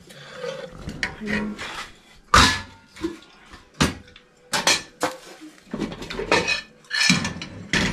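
Aluminium cooking pots and lids clanking as they are handled, a string of sharp metal clatters, the loudest about two and a half seconds in.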